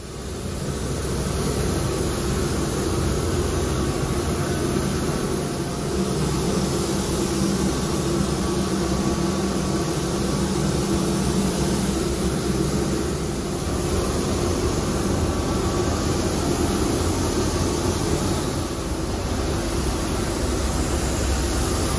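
Steady rushing roar of a paint spray booth's ventilation and a compressed-air spray gun hissing, swelling and easing slightly every few seconds.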